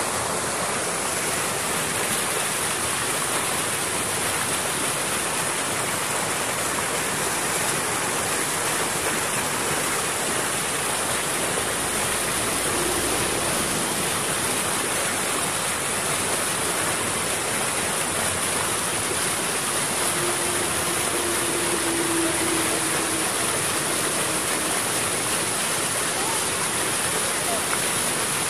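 Swollen rainy-season floodwater rushing and churning through white-water rapids, a steady, unbroken rush of water.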